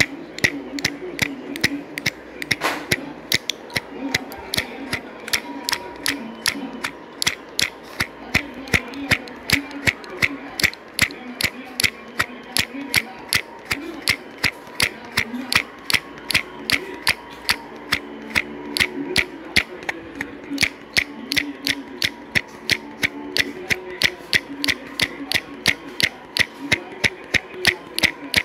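Even mechanical ticking, about three sharp clicks a second, with a faint low melody underneath.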